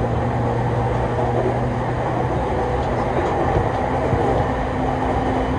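Musashino Line electric train running, heard from inside the carriage: a steady rumble of wheels on track with a low motor hum.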